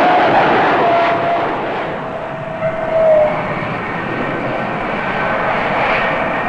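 F-4 Phantom II jet engines, twin J79 turbojets, running as the jet passes low with gear down on landing. The rushing noise carries a whining tone that slides slowly down in pitch over the first three seconds, and the whole sound eases off a little as the jet moves away.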